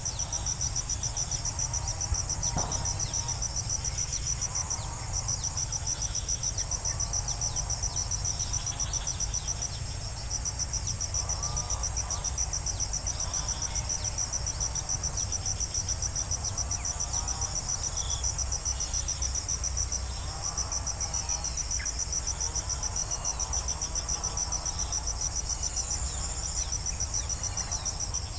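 Steady, high-pitched insect chorus, a continuous shrill trill that never breaks, with fainter lower calls coming and going underneath and a low rumble.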